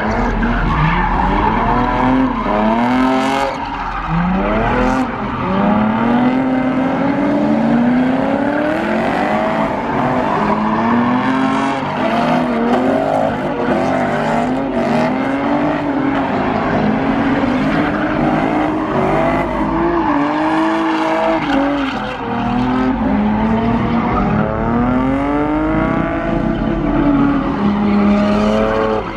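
Dodge Durango's engine revving up and down over and over while spinning donuts, its rear tyres squealing and screeching on the asphalt.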